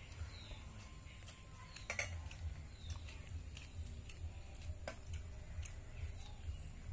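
A steel spoon clicking and clinking against a steel bowl as curry is ladled out, a few sharp clicks with the loudest about two seconds in. Eating sounds and a few faint bird chirps run under it, over a low rumble.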